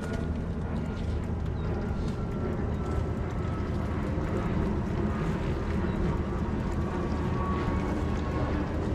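Twin Mercury Verado 300 V8 outboard engines on a boat running steadily, a low even drone.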